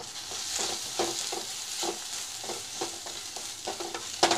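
Onion, tomato and spice masala sizzling in oil in a stainless steel kadai as it is sautéed with a wooden spatula. The spatula knocks and scrapes against the pan about twice a second, the loudest knock near the end.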